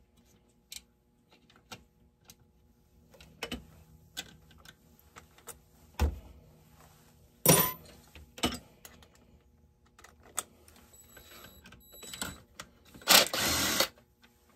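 Scattered clicks, taps and knocks of hand tools and loose chainsaw parts being handled while a RedMax GZ360 chainsaw is taken apart, the loudest knocks about 6 and 7.5 seconds in. Near the end comes a loud noisy burst just under a second long.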